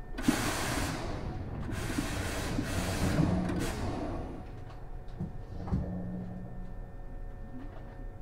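Compressed air hissing out of a Hankyu 6300 series train's pneumatic equipment in two bursts, the first starting with a click and the second longer, over the first four seconds; a single knock follows about six seconds in.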